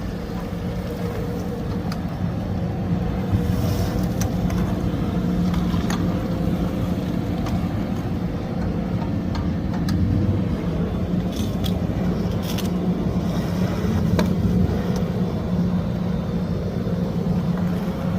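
Road sweeper truck running steadily, its engine hum held at a constant pitch over a rushing noise, with a few short clicks or scrapes.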